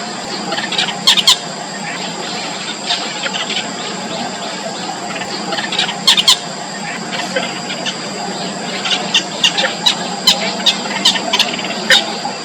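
Short, sharp squeaky calls of yellow bittern chicks in the nest: a pair about a second in, another pair about six seconds in, then a fast run of about three calls a second from around nine seconds in. The calls sit over a steady hiss with a continuous high-pitched whine.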